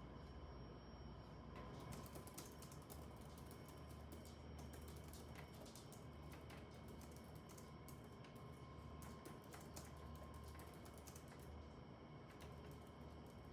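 Typing on a computer keyboard, faint: quick, irregular key clicks that start about a second and a half in, over a low steady hum.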